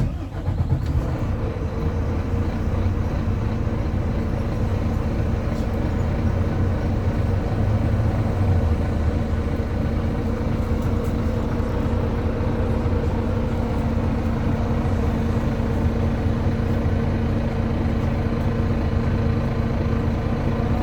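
Volvo B9TL double-decker bus's six-cylinder diesel engine running at a steady pitch, heard from inside the bus.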